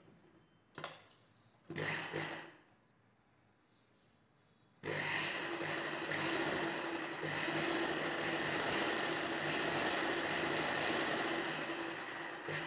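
Ralson sewing machine stitching a seam through a blouse piece and its lining: two brief bursts in the first couple of seconds, then a long steady run starting about five seconds in.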